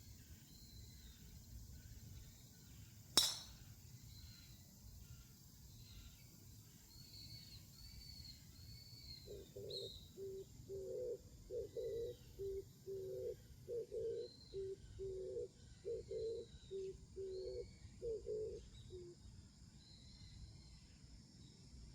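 Birds calling outdoors, with thin high chirps throughout. From about nine seconds, one bird repeats a low two-note call, higher then lower, for about ten seconds. A single sharp crack sounds about three seconds in.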